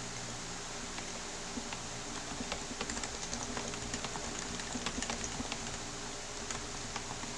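Typing on a split keyboard with Topre switches (electrostatic capacitive switches under rubber domes): irregular key presses, quickest in the middle and sparser near the start and end, over a steady low hum.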